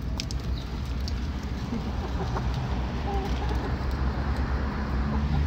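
Backyard chickens clucking softly as they peck cracked corn off concrete pavers, with a few sharp pecking taps in the first half second, over a steady low rumble.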